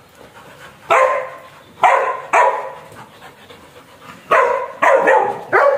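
Dogs barking: about six loud, short barks in irregular bursts, with brief quiet gaps between.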